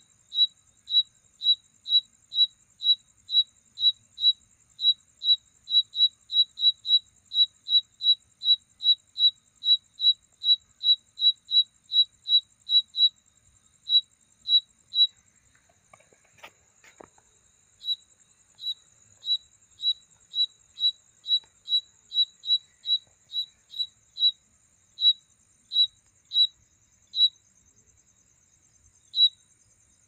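A cricket chirping: a male's calling song of short, sharp, high chirps, about two a second, stopping for a few seconds midway and again near the end. Behind it runs a steady, higher-pitched trill of another insect, and there is a brief rustle about halfway through.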